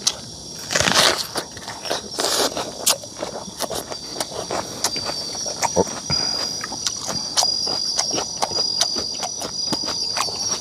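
Night insects chirping in a steady high trill, over close crunching and clicking from eating, with two louder crunches about one and two and a half seconds in as a whole raw red onion is bitten.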